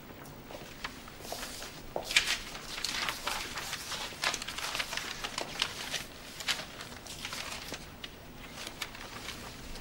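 Loose sheets of paper rustling and crinkling as they are gathered up from the floor: a dense run of crisp rustles, busiest in the middle, with one sharper crackle about two seconds in.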